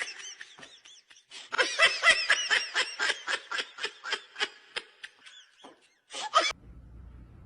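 High-pitched laughter in a rapid run of short bursts, several a second, tailing off, with another brief burst near the end.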